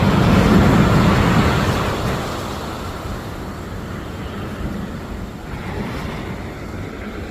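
A sea wave breaking on the shore: a loud rushing surge over the first two seconds, then settling into a lower wash of water.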